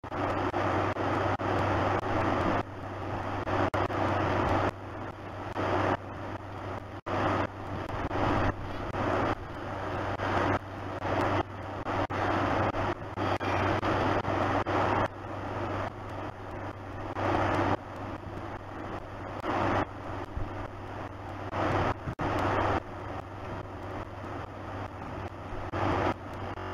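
Steady rushing noise over a constant low hum, picked up by an outdoor security camera's microphone. The level steps abruptly up and down every second or two.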